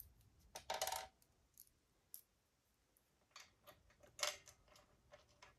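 Small stainless steel nuts and washers clinking as they are handled and set onto bolts: a few light metallic clinks, the loudest about a second in and again just past four seconds.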